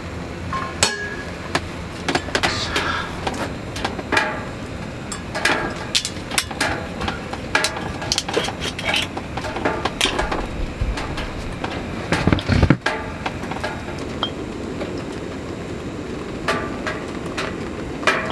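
Irregular knocks and glassy clinks of sake bottles being handled and set down on a hard surface, with a heavier thump about twelve seconds in.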